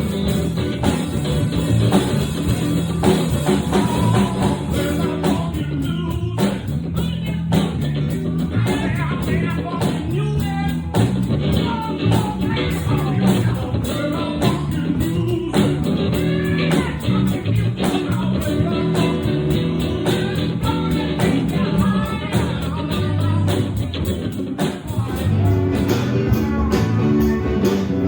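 Rock band playing live, with guitars, bass and drum kit.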